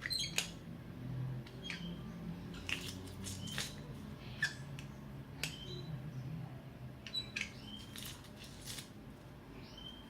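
Scattered light clicks and taps of a utensil against a bowl, about a dozen over ten seconds, several of them followed by a brief high ring. This is heard as garlic is being added to mashed zucchini.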